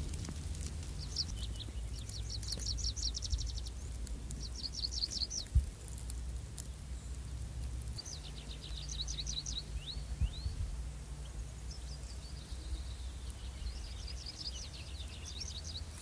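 A songbird singing short phrases of rapid high notes, four or five songs a few seconds apart, over a low steady rumble of wind. A single thump comes about five and a half seconds in.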